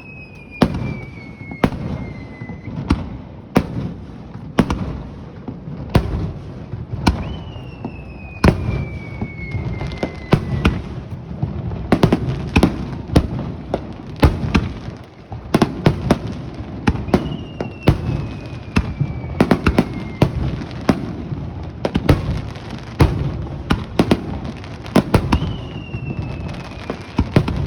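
Aerial fireworks display: a dense, irregular run of sharp bangs and booms of shell bursts. About four times a whistle slides downward in pitch for two to three seconds over the bangs.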